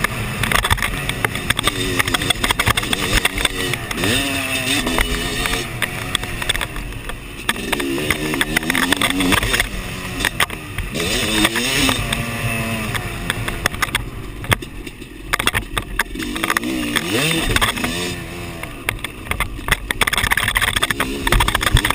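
Dirt bike engine being ridden hard on a motocross track, its pitch rising and falling again and again with throttle and gear changes.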